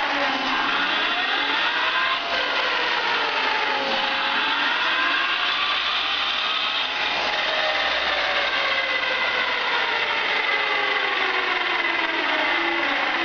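Electric motorcycle's motor, under a PWM controller, spinning the rear wheel as the throttle is worked: a loud running whine whose pitch slowly rises and falls with the throttle, over a steady mechanical drive noise.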